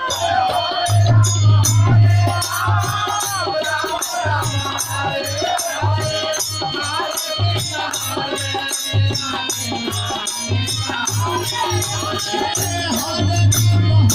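Ashtajam kirtan music from Bihar: a high, sliding vocal melody sung over a deep, regular drum beat and steady high jingling percussion strokes.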